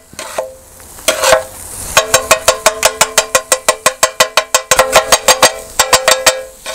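Two flat metal kothu blades chopping eggs into vegetables on a large round metal pan, the kothu-style scramble. The blades clang against the pan in a fast, even run of about six strikes a second, each strike ringing, with frying sizzle underneath. There is a short lull just after the start before the chopping picks up.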